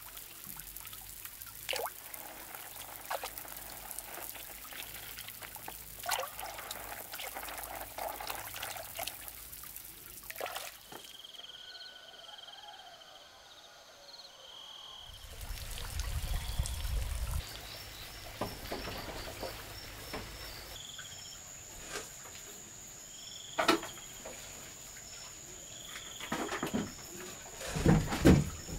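Water splashing and trickling as hands wash something in a woven bamboo basket dipped in a water tank. After about eleven seconds this gives way to evening sounds: short repeated animal calls, a brief low rumble, and from about twenty seconds in a steady high insect trill, with a few sharp knocks from a plastic bucket being handled near the end.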